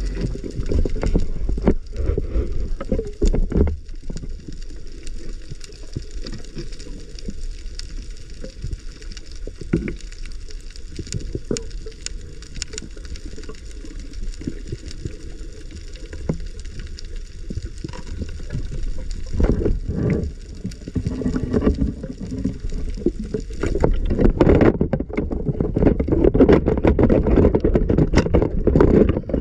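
Muffled rushing and sloshing of water with scattered knocks and clicks, typical of a camera in or at the surface of the sea; it grows louder in the last few seconds.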